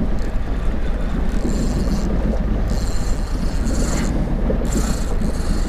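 Steady wind rumble on the microphone of an open boat. Over it come several short high whirring bursts from a Shimano Biomaster spinning reel being wound in while a fish is fought.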